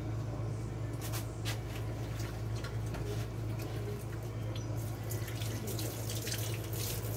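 Kitchen sink tap running while hands are washed under it, with a few light knocks and clicks. A steady low hum sits underneath.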